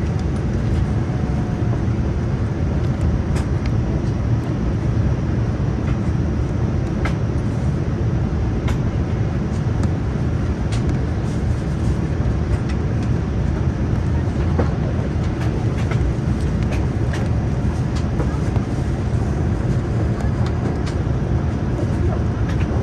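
Steady interior noise of a Boeing 787-9 airliner, a dense low rush of airflow and engine sound with a few faint clicks.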